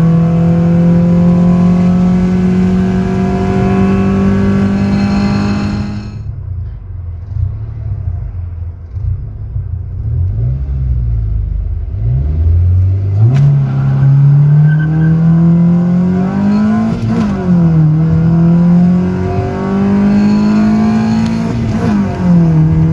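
Honda Civic VTi's 1.6-litre SOHC VTEC four-cylinder (D16Y8), heard from inside the cabin, held high in the revs under full throttle. After an abrupt cut it idles, then launches hard and revs up through the gears of the manual gearbox, its pitch dropping at each upshift.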